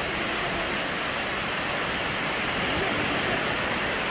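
Small waves breaking and washing up a sandy beach, making a steady, unbroken hiss of surf.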